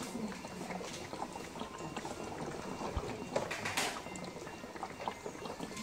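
Water bubbling steadily inside a chest drainage unit, a continuous patter of small pops, with a short louder hiss about two-thirds of the way in.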